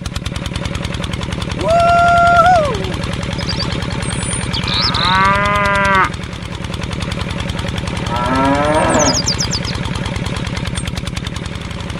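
Cows mooing three times, about two seconds in, at about five seconds and near nine seconds, over the steady rapid chugging of a tractor engine.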